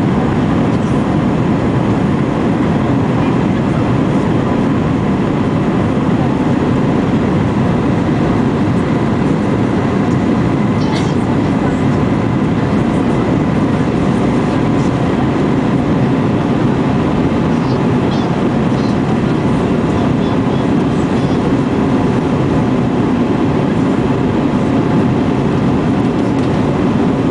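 Steady cabin noise inside an Airbus A320-family jet during the climb after takeoff: engine noise and rushing air blend into one even, unbroken rumble, with a faint steady hum running through it.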